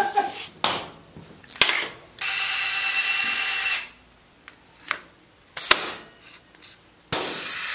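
A steady mechanical whir for about a second and a half, then a few sharp clicks and a pneumatic rivet gun setting a rivet in a sheet-metal switch box, with a steady hiss of air from the gun near the end.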